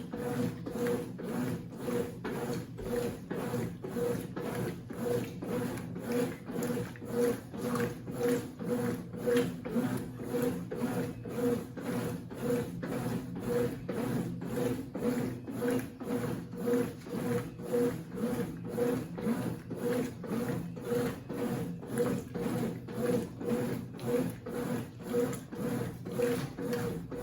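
Consul CWC08 top-load washing machine agitating a load: its motor and drive whir in an even, repeating back-and-forth rhythm as it churns a bedspread in the wash water.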